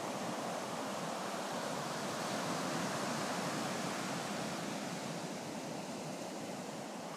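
Surf breaking and washing up a sandy beach: a steady wash of waves that swells a little a few seconds in and eases off toward the end.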